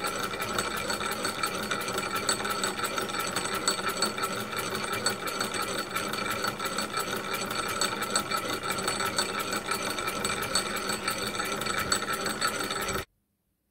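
Model geared oscillating engine running fast and rather noisy: a rapid, even mechanical clatter with a steady high whine. It stops suddenly near the end.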